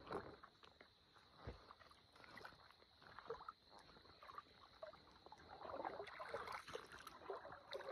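Faint sloshing and splashing of footsteps wading through shallow water, with a few soft knocks.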